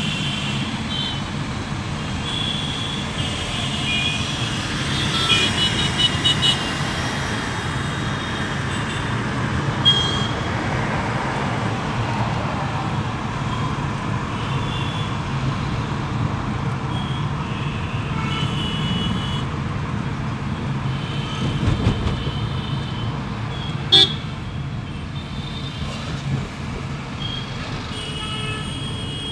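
Dense city traffic heard from inside a moving car: steady engine and road rumble, with car horns honking again and again, including a quick run of short toots. There is a single sharp click about three quarters of the way through.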